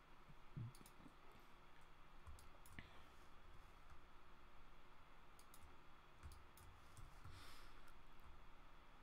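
Faint, scattered computer mouse clicks over near-silent room tone.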